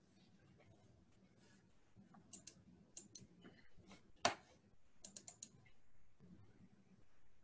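Faint computer keyboard typing: scattered clicks, then quick runs of keystrokes about two seconds in and again near five seconds, with one louder click a little past four seconds.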